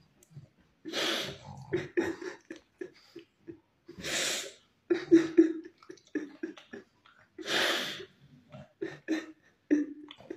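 A man fake-crying: three long noisy sniffling breaths a few seconds apart, with short choked sobs between them.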